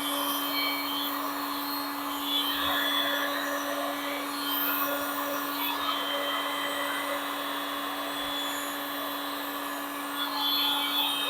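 Heat gun running steadily: a constant motor hum with a rushing hiss of blown air.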